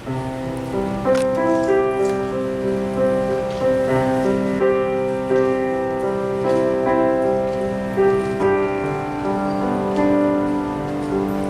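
A keyboard instrument playing slow music in held chords with a moving melody; it begins right at the start.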